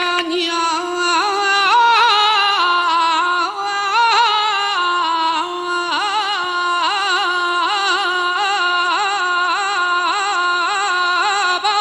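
Male copla singer's voice drawing out long, wavering wordless notes in a melisma, with short breaks between phrases.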